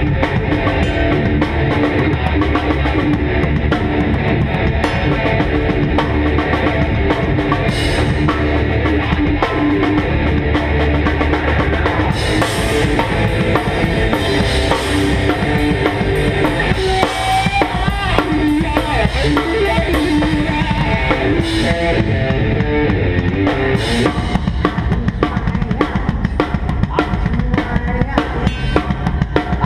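Glam metal band playing live: a rock drum kit with bass drum and snare driving the beat, cymbal crashes now and then, and electric guitars.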